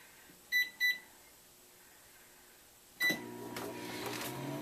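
Microwave oven keypad beeping twice as the cooking time is entered. About three seconds in, a further beep and the oven starts running with a steady hum.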